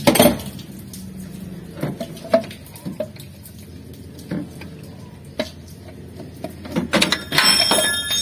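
Scattered metallic knocks and clinks as a cast-aluminium water pump is worked loose by hand from a Mitsubishi L300 diesel engine. There is a sharp knock at the start and a cluster of ringing clinks near the end.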